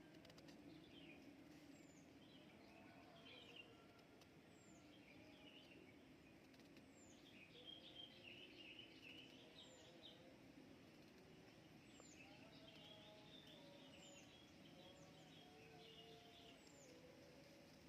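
Faint chorus of wild birds chirping and trilling in the background, with one short, high falling note repeating about once a second.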